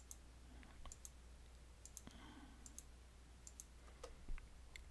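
Faint clicks of a computer mouse, each a quick pair of ticks, about once a second, over a low steady hum.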